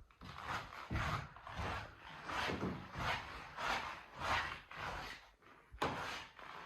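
Footsteps of a person walking across the floor, an even run of scuffing steps about one and a half a second, with the rubbing of the handheld recording device close to the microphone.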